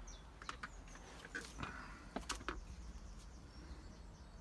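Quiet, with a few faint, short clicks and taps scattered through it.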